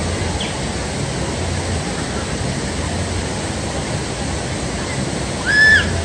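Steady rushing noise of falling water from a waterfall, with a short high-pitched cry near the end.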